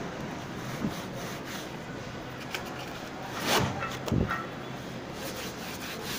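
Hands working pasteboard and a glued bookbinding cover on a table. There is a light knock about a second in, two louder handling rustles a little past the middle as the cover sheet is laid on the board, and a cloth rubbing the cover down near the end, all over a steady background hiss.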